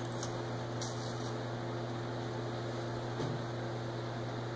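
Steady low electrical hum with a hiss over it, and a few faint crunches of crackers being bitten and chewed, near the start and again about three seconds in.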